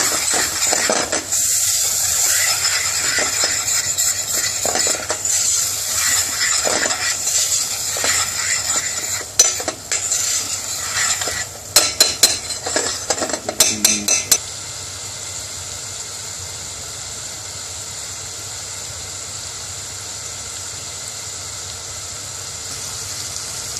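Metal spoon stirring and scraping around a stainless steel saucepan of whole spices and curry paste frying in oil, with a run of sharp clinks of the spoon against the pan a little past halfway. The stirring then stops, leaving only the steady sizzle of the frying spices.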